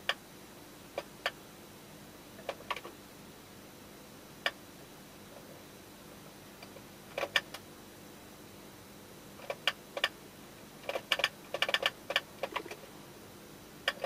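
Sharp plastic clicks of a finger pressing the cue button on a Pioneer DDJ-T1 DJ controller, a few single presses at first, then quick runs of presses in the second half. The button's tactile switch is being tested because the cue button has stopped responding, which the repairer suspects is the loose, unscrewed circuit board flexing away from the button.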